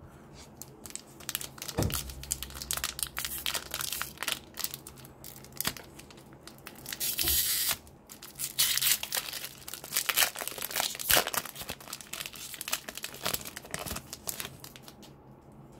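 A 2020 Select AFL Footy Stars foil trading-card pack being torn open by hand: crackling rips, with one longer steady tear about seven seconds in. Then the foil wrapper crinkles as it is crumpled.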